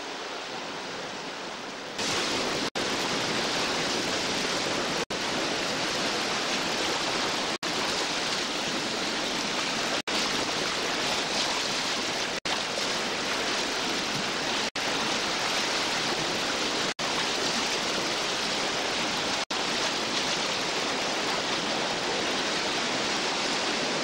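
Whitewater rapids rushing loudly around a raft running them. The rush steps up sharply about two seconds in, and the sound drops out for an instant about every two and a half seconds.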